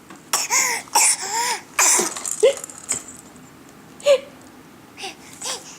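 A baby gasping again and again: sharp, breathy catches of breath, many with a short squeaky voiced note, in a quick run of about six through the first two and a half seconds, then three more spaced out near the end.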